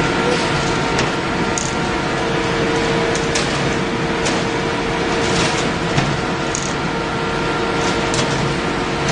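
Steel sheet equalizing line running: a steady mechanical drone with a constant hum from the rolls and drives, and scattered light clicks and ticks as the sheet travels over the rollers.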